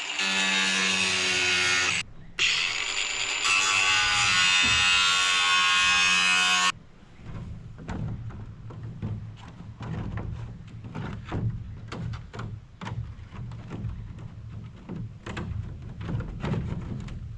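Angle grinder cutting into a roof panel: the disc whines at speed in two runs, the first about two seconds, the second, after a short pause, about three seconds. Then come scattered knocks and scrapes as the cut panel is handled and slid into place.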